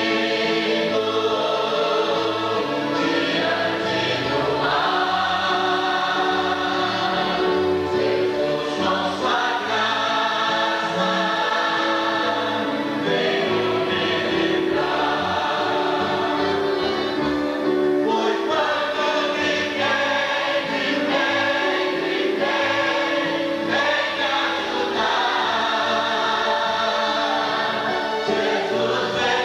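A large congregation of men, women and children singing a hymn together in Portuguese, steady and unbroken.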